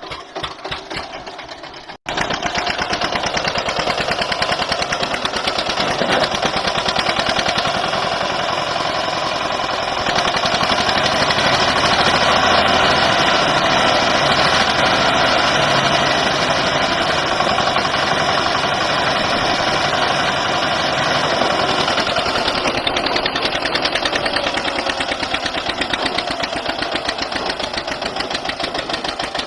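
An old diesel tractor engine running loud and steady with a fast, even firing beat. The first two seconds are quieter and uneven, and the engine gets louder from about ten seconds in as it is worked harder.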